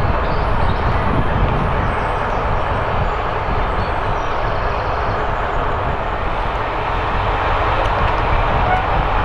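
Diesel-hauled passenger train running slowly, with a steady engine rumble and the running noise of the coaches.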